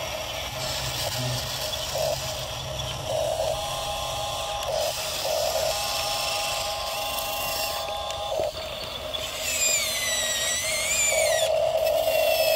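Small electric drive motors and gearbox of an RC model bulldozer whining steadily as it crawls on its tracks and pushes gravel with its blade. A higher wavering whistle joins about ten seconds in.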